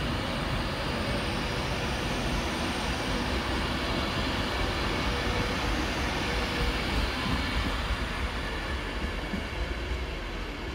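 Class 390 Pendolino electric train pulling out of the station: a steady rumble of wheels on rail with a faint steady hum, easing slightly near the end.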